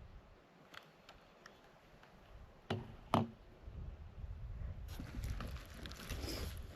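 Two sharp knocks about half a second apart, after a few faint clicks, then a low rumble.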